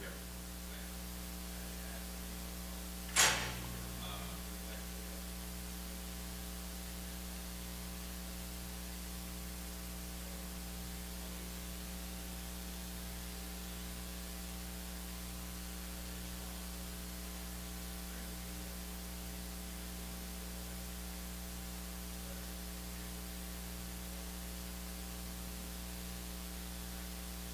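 Steady electrical mains hum with a faint static hiss, and a single sharp click a little over three seconds in.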